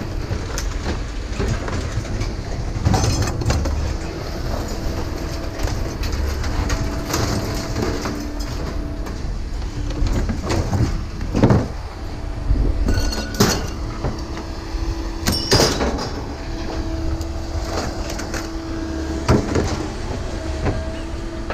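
Scrap metal being unloaded from a trailer and thrown onto a pile: scattered metallic clanks and scrapes, the sharpest about halfway through, over a steady low machine hum.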